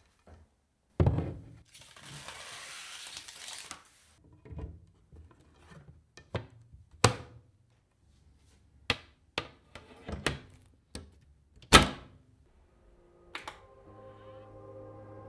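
Sharp clicks and knocks of PC hardware being handled and fitted together, about nine separate strikes with a short hiss about two seconds in. Soft background music starts near the end.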